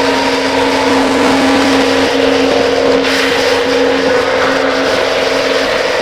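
Harsh noise music: a loud, dense wall of distorted noise with steady droning tones under it, the lowest drone dropping out near the end.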